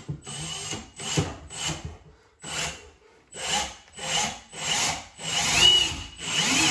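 Cordless drill driving a screw into wood in about nine short bursts, the later ones longer and louder. The screw is biting into a wall stud behind the cabinet.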